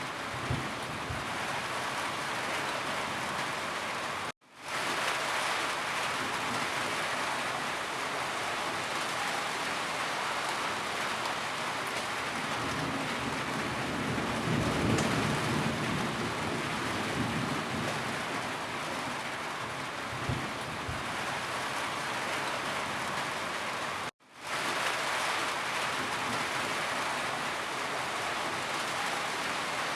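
Steady rain falling, an even hiss of drops, with a low rumble swelling about halfway through. Twice, about four seconds in and again near twenty-four seconds, the rain cuts out to silence for an instant and fades back in, like the seam of a looped recording.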